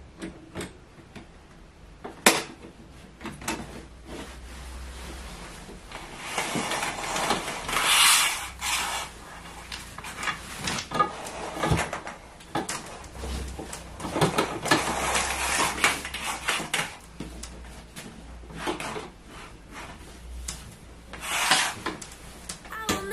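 Eyelet curtains being handled on their curtain pole: the rings scrape and slide along the pole, and the fabric rustles. There are scattered knocks, a sharp one about two seconds in, with two longer spells of scraping in the middle.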